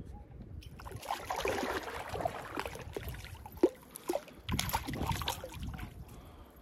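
A small landlocked salmon splashing in shallow water in irregular bursts as it is reeled in and lifted out, with one sharp click about midway.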